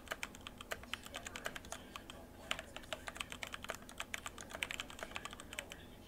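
Typing on a Royal Kludge RK104 Plus (RK989) mechanical keyboard with its stock ABS doubleshot keycaps: a quick, uneven run of keystroke clicks, with a short pause about two seconds in.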